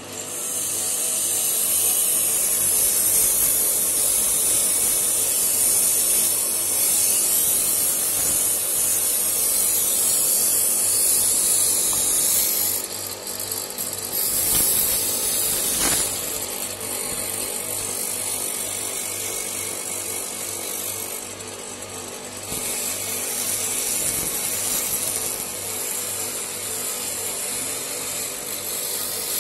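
200 mm, 350 W bench grinder running with a steady motor hum while a strip of hacksaw blade is pressed against the spinning grinding wheel, giving a harsh, high hiss of abrasive on steel. The hiss eases briefly about halfway through and again a little later, then resumes.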